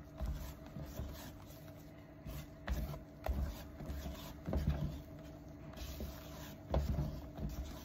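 Silicone spatula folding thick cake batter and scraping around a plastic bowl: soft, irregular scrapes and wet squelches, with a few light clicks, over a faint steady hum.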